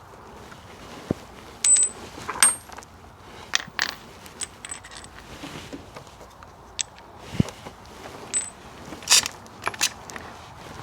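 Metal hand tools and parts clinking and clattering as they are handled, a dozen or so scattered sharp clinks and knocks, some ringing briefly.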